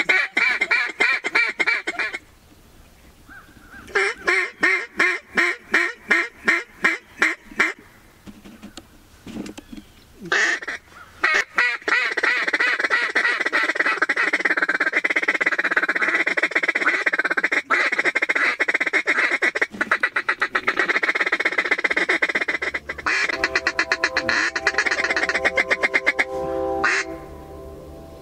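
Mallard quacking: a fast run of loud quacks, another about four seconds in, then a long stretch of rapid feeding chatter. Background music comes in near the end.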